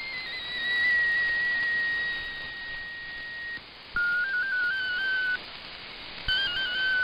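Shortwave digital-text transmission heard through a receiver's audio over steady radio hiss. The MFSK16 tones hop briefly, settle into one steady whistle-like tone and stop about three and a half seconds in. Then two short bursts of hopping tones follow at a lower pitch, each about a second and a half long, as the broadcast switches to MFSK64.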